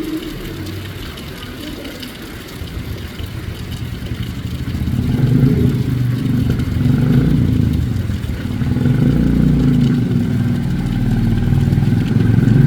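A motor vehicle's engine running nearby, growing louder about a third of the way in and staying loud, over a faint hiss.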